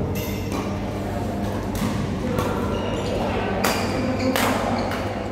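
Badminton rackets striking a shuttlecock in a doubles rally: sharp hits about every half second to a second, with short high squeaks from court shoes between them. A steady low hum runs underneath.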